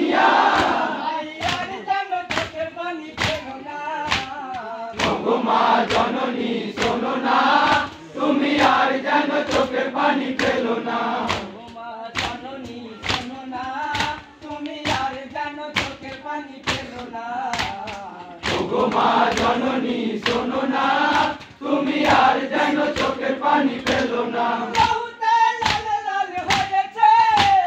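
A crowd of men chanting a Muharram matam lament in unison while beating their chests, the hand-strikes landing as a steady thudding beat about one and a half times a second.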